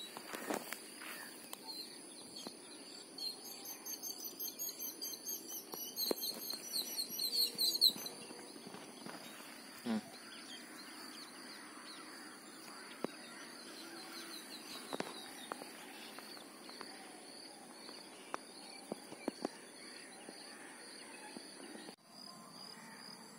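Quiet outdoor ambience: a steady high-pitched insect drone, with a bird calling in a fast run of repeated chirps from about three to eight seconds in, and scattered small clicks and knocks.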